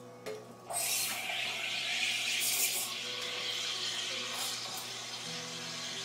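Reneka Viva two-group espresso machine: a click, then a steady hiss begins just under a second in, with a few brief louder spurts, like steam or hot water being let out. Soft background music plays underneath.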